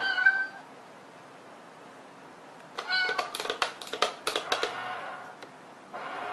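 A short meow at the start, then another meow about three seconds in, followed by a quick run of sharp clicks and taps lasting about two seconds, as a cat paws at a box-shaped cat coin bank toy.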